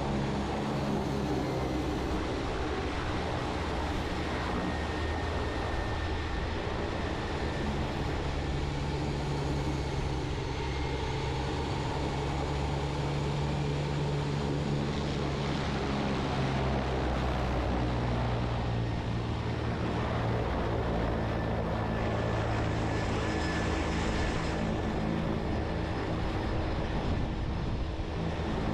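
Cessna Grand Caravan 208B's Pratt & Whitney PT6A turboprop engine and propeller running at low taxi power, a steady hum with a faint high whine, as the aircraft taxis under autonomous control.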